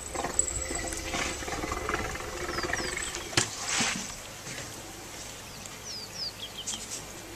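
African elephant giving a low rumbling call through the first three seconds or so, followed by a sharp knock a little past three seconds in.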